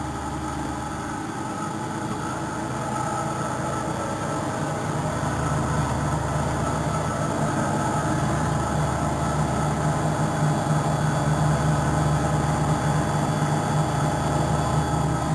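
Neff washing machine on its spin cycle: the motor and drum give a steady hum with several whining tones, growing gradually louder.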